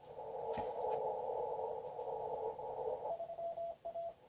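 ICOM IC-7200 shortwave transceiver receiving on the 20-metre band in CW mode: a narrow band of hiss through the CW filter while the operator tunes for another station, then about three seconds in a single-pitched Morse code tone starts keying on and off.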